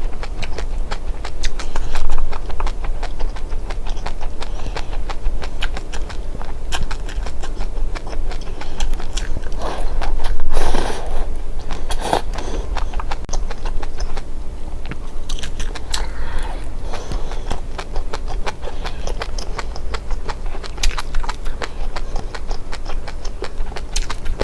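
Close-up chewing and crunching of dry seeds: a dense run of small crisp cracks, with louder, fuller crunching about ten seconds in.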